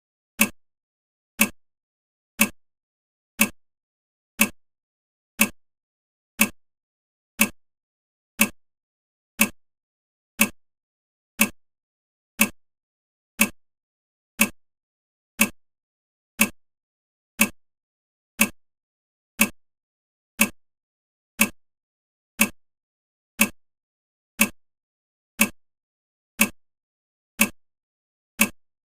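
Countdown timer's clock-tick sound effect: one short tick every second, steady and even.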